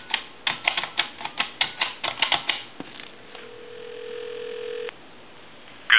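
Touch-tone keypad of a Princess telephone being dialed: a quick run of about a dozen short key tones and clicks over roughly two and a half seconds. Then, about three seconds in, a steady ringback tone plays for about two seconds as the called line rings.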